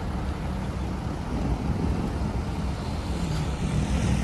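Steady low rumble of vehicle engines running, with a motor's hum growing louder near the end.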